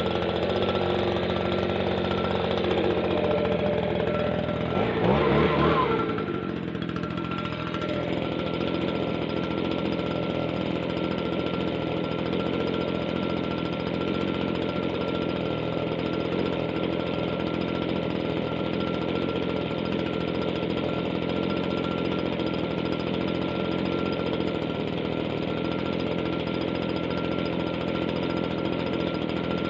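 Stihl BG56 leaf blower's small two-stroke engine idling steadily, with one brief rev up and back down about five seconds in.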